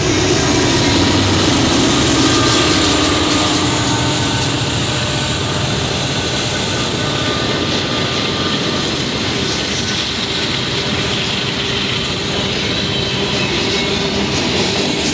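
Freight train passing close by, led by a BNSF GE Dash 9 diesel-electric locomotive: its diesel engine is loudest in the first few seconds, and the engine sound gives way to freight cars rolling past with steady wheel and rail noise.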